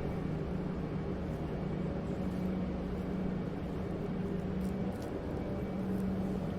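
Breakfast-room ambience dominated by a steady low machine hum, with a few faint clicks.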